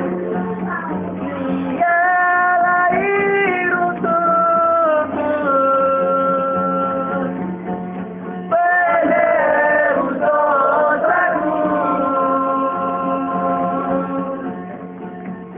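A voice singing a slow melody in phrases with long held notes, over a guitar accompaniment.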